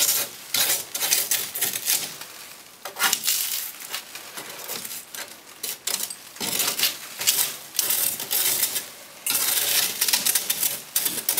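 Sheet-metal stove pipe being bent back and knocked, with flakes of dry creosote rattling down into a plastic trash bag: an irregular run of scraping, clinking and crinkling.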